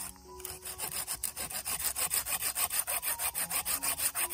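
Folding hand saw cutting through a dead branch, with quick, even rasping strokes that pause briefly just after the start and then keep a steady rhythm.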